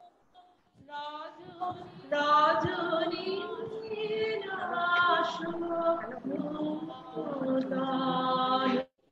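A woman singing a song solo, with long held notes and slow glides in pitch, heard through a video call; the singing starts about a second in and cuts off abruptly near the end.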